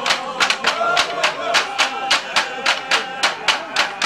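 Live folk music: sharp, even beats about four a second drive a held, wavering melody line that bends in pitch now and then.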